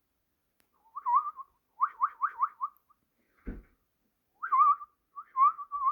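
Pineapple conure giving short whistled chirps, including a quick run of four, with one soft thump about halfway through.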